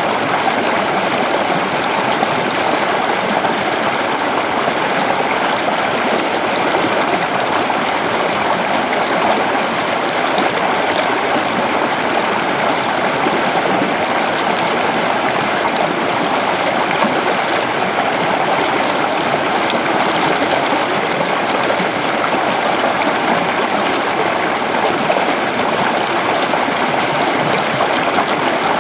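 Water flowing steadily in a stream, an even rush with no pauses or changes.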